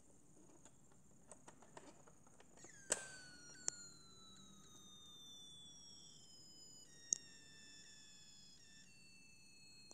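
Faint clicks and taps of hands handling a plastic Polly Pocket playset, the loudest about three seconds in and again about seven seconds in. After the first loud click a faint whine slowly falls in pitch for a couple of seconds.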